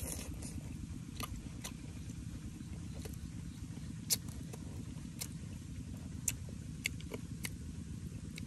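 A person eating fish soup from a spoon: chewing and lip smacks heard as sharp, irregular clicks, about nine in all, over a steady low rumble.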